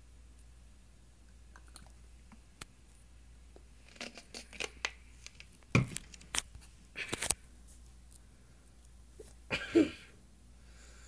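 Mouth noises from someone holding a mouthful of hot sauce: after a few quiet seconds, a run of wet clicks and smacks through the middle, then a short muffled vocal sound near the end.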